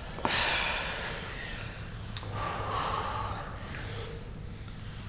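People breathing hard while doing slow bodyweight squats: two long, audible breaths, with a short click just after the start.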